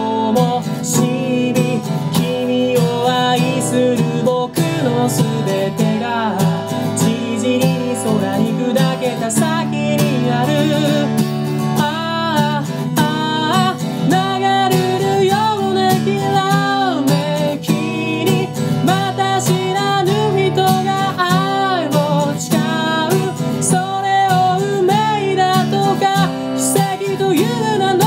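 Acoustic guitar strummed steadily, with a singing voice carrying a melody over it for much of the stretch, most clearly from about a third of the way in.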